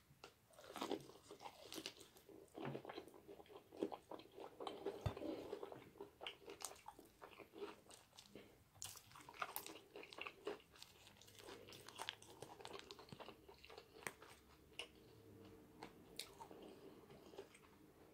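Close-miked biting and chewing of fried chicken covered in cheese sauce, with the crisp breading crunching between the teeth. The crunches come in many short, sharp cracks, busiest and loudest in the first few seconds.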